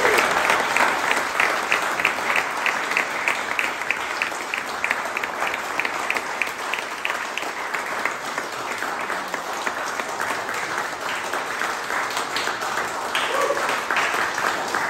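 A crowd of children and adults clapping. For the first half the claps fall together in a steady rhythm of about three a second, then they break up into looser, uneven applause.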